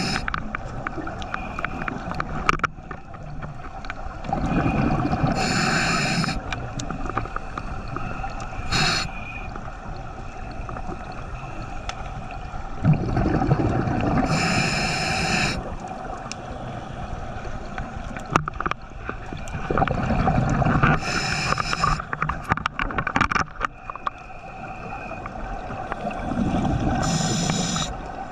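Scuba diver breathing underwater through a regulator: four slow, regular breaths about seven seconds apart, each a hiss of air through the regulator and a low gurgling rush of exhaled bubbles.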